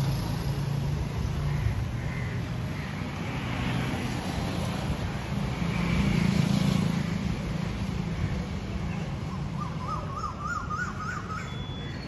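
Street traffic ambience: a steady low traffic rumble that swells about six seconds in as a vehicle passes. Near the end a bird gives a quick warbling call, repeated several times in a row.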